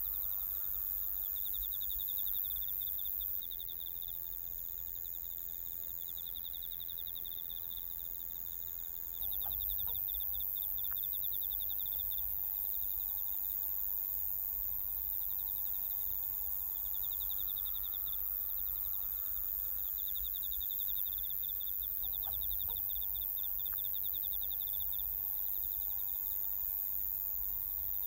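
Crickets chirping in repeated trills of fast pulses, each trill lasting a second or two and recurring every few seconds, over a steady high hiss of outdoor ambience.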